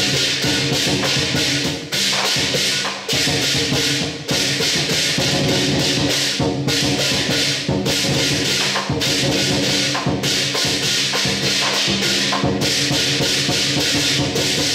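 Lion dance percussion: a big drum driving a steady beat under clashing cymbals and gong, played loud and without a pause.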